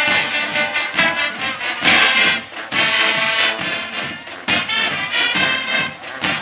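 Marching band playing: brass instruments holding sustained chords over drums, with sharp percussion accents about one, two and four and a half seconds in.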